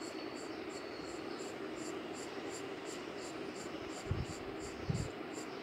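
Graphite pencil shading on drawing paper: a soft, steady scratching. Over it a faint high chirp repeats about five times a second, and two low thumps come near the end.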